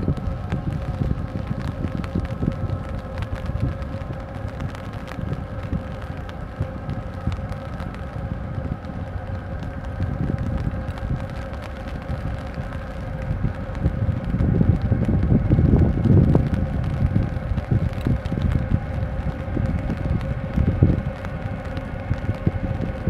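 Steady machinery hum with several held tones from the HYUNDAI SMART, a 366 m container ship, as it passes close by. Wind buffets the microphone throughout with a low rumble, loudest about two-thirds of the way through.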